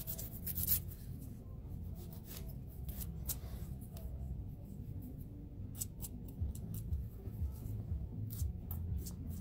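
Metal nail file with a replaceable abrasive strip making short, scattered strokes against a fingernail: brief scrapes and clicks every second or two.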